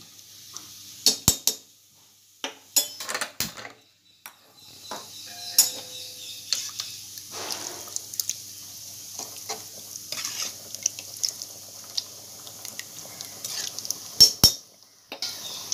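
Steel ladle stirring beef pieces in gravy in an aluminium pot, clinking and scraping against the pot's side in short clusters, with two loud clanks near the end. A low steady hiss of the cooking gravy runs underneath through most of it.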